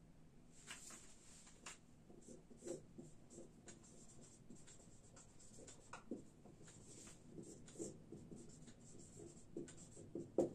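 Marker pen writing on a whiteboard: faint, irregular short strokes and light squeaks as words are written out, with a slightly sharper tap near the end.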